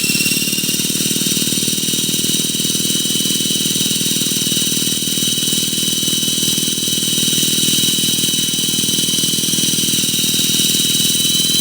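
Align T-Rex 450 electric RC helicopter running at steady speed: a high electric-motor and gear whine over a dense low rotor drone, the whine edging up slightly in pitch near the end.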